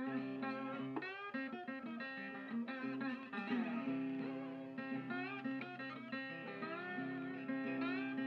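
Background guitar music, with several notes bent upward in pitch.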